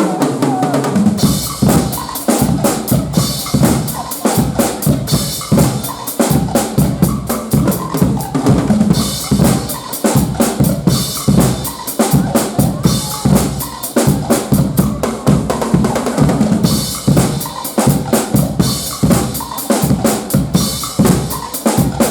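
Guggenmusik band playing loud carnival music: pounding bass drum, snare and cymbals in a steady beat under brass.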